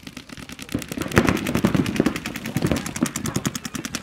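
Paintball markers firing rapid streams of shots, a fast, even rattle of pops that grows louder about a second in.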